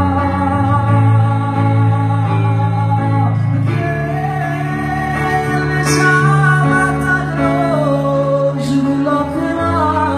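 A man singing live into a microphone over electronic keyboard accompaniment, with sustained chords, bass and a guitar-like tone, played through PA speakers. The melody line slides and bends over steady chords.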